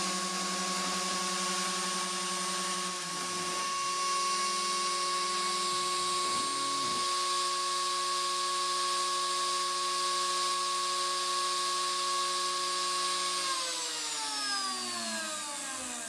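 Router motor on a CNC router running at steady speed with a high whine, then switched off about 13 seconds in, its whine falling in pitch as it spins down.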